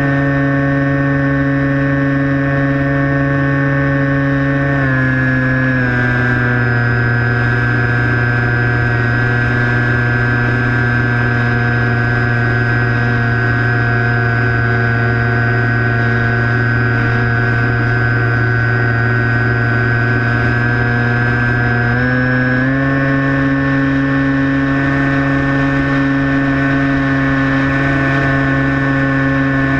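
Skywalker 1680 FPV plane's electric motor and propeller running steadily in flight, over a constant rush of air noise. The pitch steps down slightly about five seconds in and rises back about twenty-two seconds in.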